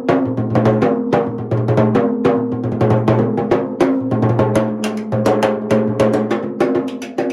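A pair of timbales with Evans G2 Clear heads played with timbale sticks: a quick, busy pattern of strikes, several a second, with the tuned heads ringing at two clear pitches.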